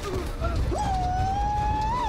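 A man's long drawn-out yell, starting under a second in, held about a second and a half and dropping in pitch at the end, over a low rumble of action sound effects.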